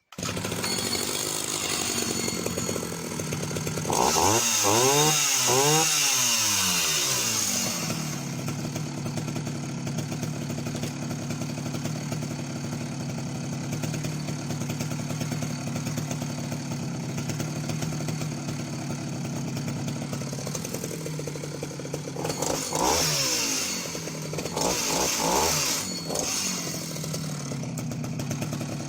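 Vintage Husqvarna L65 chainsaw's 65cc single-cylinder two-stroke engine running, idling steadily between two hard revs: one about four seconds in lasting several seconds, and another near the end.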